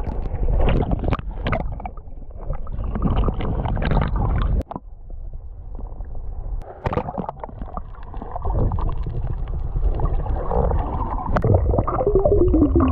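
Muffled underwater sound from a camera held in shallow reef water: water churning and gurgling with scattered knocks, mostly deep and dull. Near the end the camera is at the surface and the water splashes and churns more loudly.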